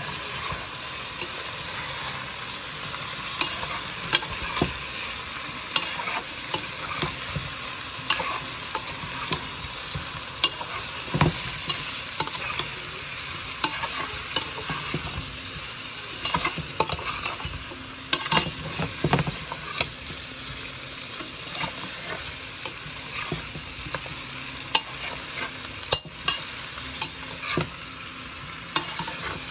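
Chicken pieces frying in oil in a pot, a steady sizzle, while a metal spoon stirs them with frequent sharp clicks and scrapes against the pot.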